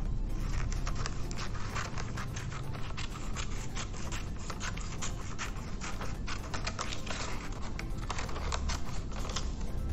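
Scissors cutting paper: a quick run of short snips as the blades work along a curved line through a paper pattern.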